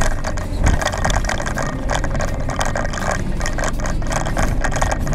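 Ford Transit van driving, heard from inside the cab: a steady engine and road rumble under constant, dense rattling and clattering of the cabin.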